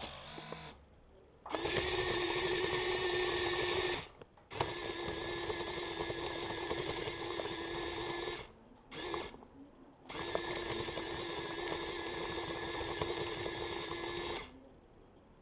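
Small electric motors and gearing of a Kyosho 1:50 Komatsu 1250 radio-controlled excavator whining steadily at one pitch as the model is driven. It runs in three stretches of a few seconds each, with a short burst in between, stopping briefly between them.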